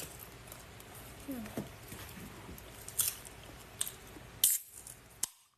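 Close-up eating sounds of a person chewing food, with a few sharp clicks, the loudest about four and a half seconds in. The sound cuts out just before the end.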